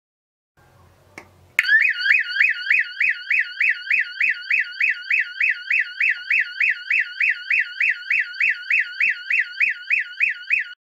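Homemade alarm's electronic siren sounding through a loudspeaker. After a faint hum and a click it starts suddenly, a fast warbling tone rising and falling about three and a half times a second, and cuts off abruptly near the end.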